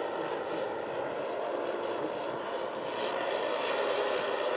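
The twelve 10 cc OS model engines of a 1:10 scale Dornier Do-X RC flying boat droning together in flight, a steady multi-engine buzz that grows louder toward the end as the model passes.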